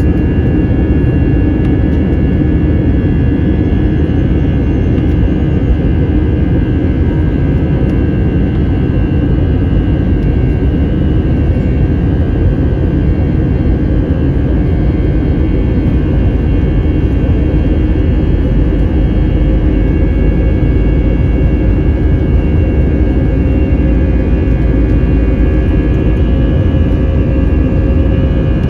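Airbus A321's jet engines heard from inside the passenger cabin: a steady, loud rumble with a high, even whine on top.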